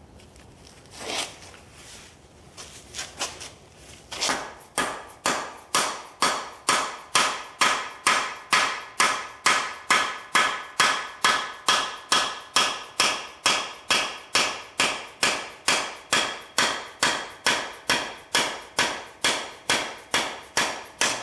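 A hammer strikes the end of a cam bearing removal tool's long steel rod, driving a cam bearing out of a Ford FE 390 cast-iron engine block. A few light taps are followed by steady blows, about two to three a second, each with a metallic ring.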